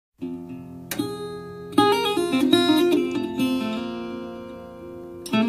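Background music: an acoustic guitar song intro, a few picked notes and then a stronger strummed chord about two seconds in, ringing away before the next chord near the end.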